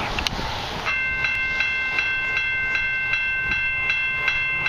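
Railway level-crossing warning bell ringing, starting about a second in and striking steadily about two and a half times a second, signalling an approaching train. Wind noise on the microphone before the bell starts.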